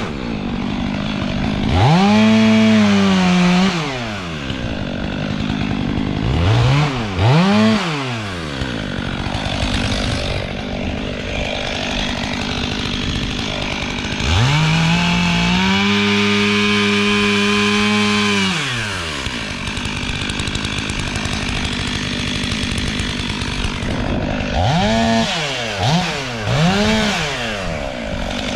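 Two-stroke chainsaw running, revved up to full throttle and held there for a couple of seconds about two seconds in, and again for about four seconds around the middle. Between these it drops back to a lower running speed, with quick throttle blips.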